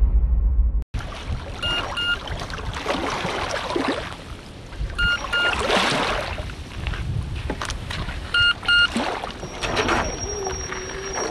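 Choppy lake water lapping and splashing in the shallows around a small RC speedboat on its trailer, with wind noise, after background music cuts off about a second in. A short double electronic beep repeats about every three seconds, and a thin steady whine comes in near the end.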